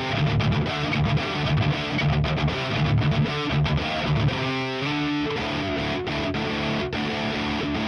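1980 Gibson Les Paul Custom with stock T-Top humbuckers, played through a Diezel VH4 head and a Marshall 4x12 cabinet loaded with Celestion Vintage 30s, with distortion. A choppy, stop-start riff runs for the first four seconds or so, then gives way to sustained ringing notes.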